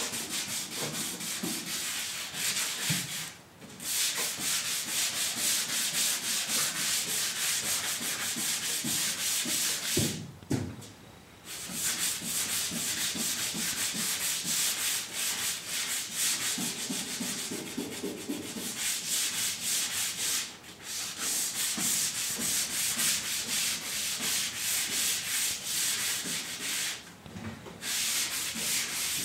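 Truck bed floor being hand-sanded with sandpaper: quick back-and-forth scratchy rubbing strokes. The sanding stops briefly four times.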